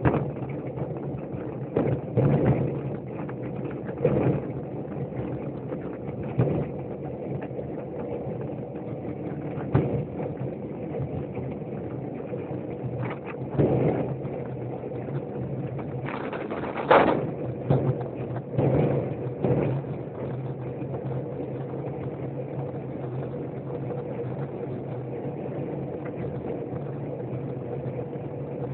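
Vehicle engine running steadily at a constant hum while travelling along a road. Several short, loud noises break through at intervals, the loudest about seventeen seconds in.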